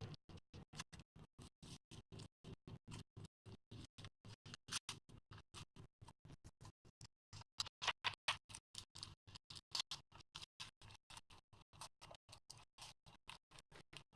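Slime being squeezed and poked, making a fast, faint run of small clicks and pops, about five a second, a little louder partway through.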